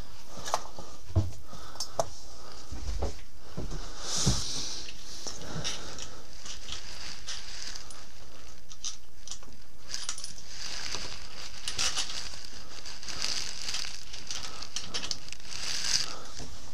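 Scattered light metallic clicks and clinks of small engine parts and tools being picked up and set down, over a steady faint hiss.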